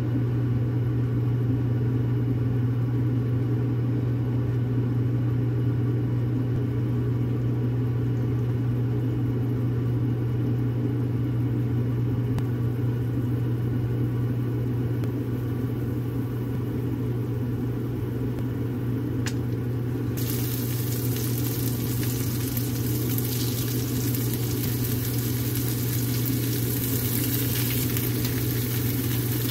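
A steady low mechanical hum throughout. About two-thirds of the way in there is a click, then food starts sizzling as it frys in a hot pan, and the sizzling continues to the end.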